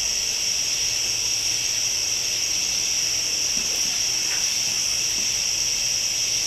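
A steady high-pitched hiss that holds one even level throughout, with a few faint ticks.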